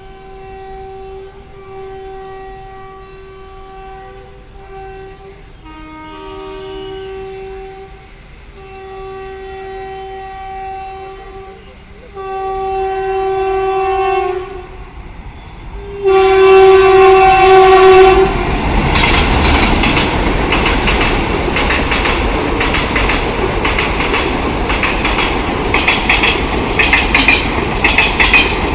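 WAP-4 electric locomotive's horn sounding a series of long blasts as the express approaches, each louder than the last. About two-thirds of the way through the horn stops and the passing train's wheels take over: loud track sound, a dense rattle with rapid clicks over the rail joints.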